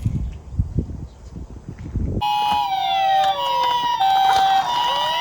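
Toy minicars rolling and clattering down a slope for about two seconds. Then emergency sirens cut in: a two-note hi-lo siren layered over a wailing siren that falls and then rises again.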